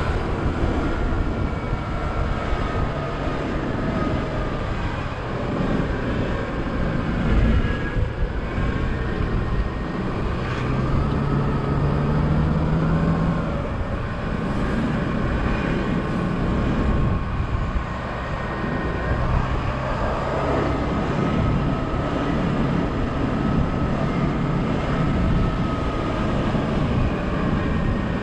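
Open-top double-decker bus driving along a town street, its engine running steadily under road noise as heard from the upper deck; the engine note rises briefly about ten seconds in.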